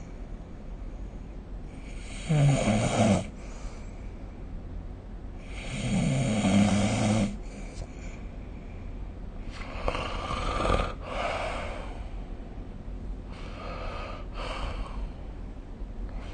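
A sleeping person snoring: about four snores in a slow, regular rhythm, one every three to four seconds, the first two the loudest and deepest.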